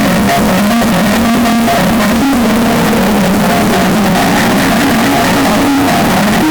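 Heavily distorted, loud electronic melody: a Nokia ringtone run through stacked audio effects. Its notes step up and down under a constant wash of harsh noise.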